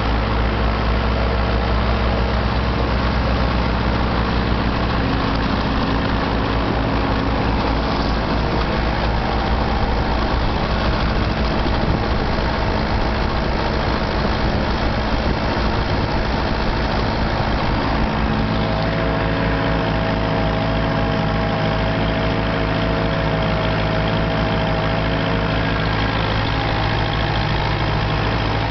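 Massey Ferguson 168 tractor's four-cylinder diesel engine running steadily under load, pulling an MF39 tine cultivator through the soil, heard from on the tractor. About 18 seconds in the engine note shifts and a higher steady whine comes in for several seconds.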